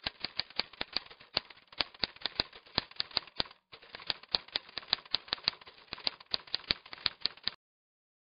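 Typewriter keys clacking in a fast, irregular run of about six strokes a second, with a brief pause about three and a half seconds in; the typing stops shortly before the end.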